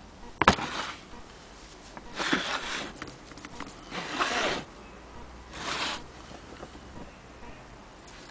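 Handling noise: a sharp click about half a second in, then three short scraping, rustling noises, each under a second long.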